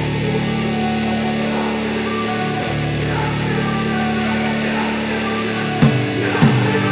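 Background rock music with sustained distorted electric guitar chords, and two sharp drum hits near the end.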